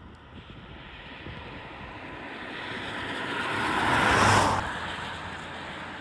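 A car approaching and passing on a wet road, its tyre noise growing louder over about four seconds and then cutting off abruptly, followed by steadier, quieter road noise.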